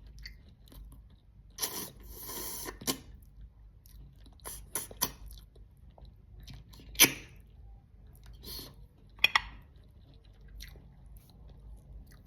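Close-miked chewing and crunching of food: irregular bursts of crunches and wet clicks, the sharpest about seven seconds in and two quick ones just after nine seconds.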